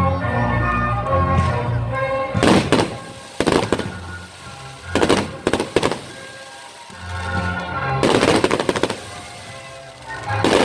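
Fireworks going off in about five separate volleys, each a rapid rattle of sharp bangs lasting half a second to a second, the first about two seconds in, the loudest near the end.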